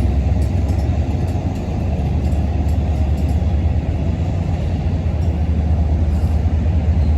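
MARC commuter train running, a steady low rumble of wheels and motion.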